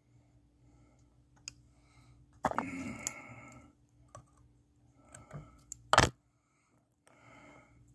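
Small fly-tying scissors and hands working material at the vise: faint scattered clicks, a breathy rustle about a second long starting about two and a half seconds in, and one sharp knock about six seconds in.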